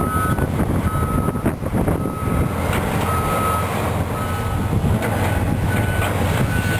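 Backup alarm on heavy demolition machinery beeping about once a second, over the steady low rumble of the machine's engine.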